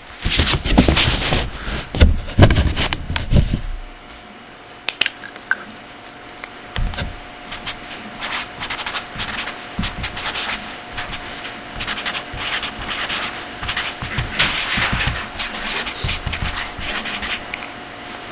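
Rubbing and scraping for the first few seconds, then a long series of short scratchy strokes of a marker writing or drawing on a board or transparency. A faint steady hum runs underneath.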